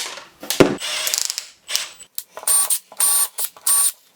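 A sharp snap, then a run of rapid ratcheting clicks, then three short whirring bursts with a steady whine: a nail's head being cut off, a drill chuck being tightened on the headless nail, and the drill briefly spun to make a pilot hole.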